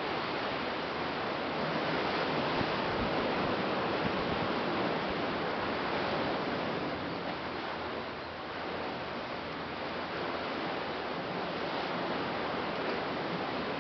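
Ocean surf washing against a black lava-rock shoreline: a steady rushing noise that slowly swells and eases.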